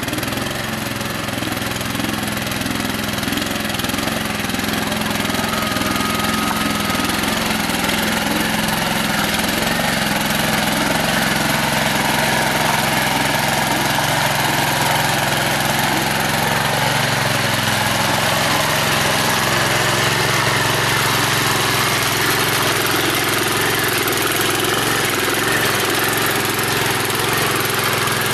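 Small engine of a walk-behind rotary tiller running steadily under load as its tines churn through wet, muddy soil.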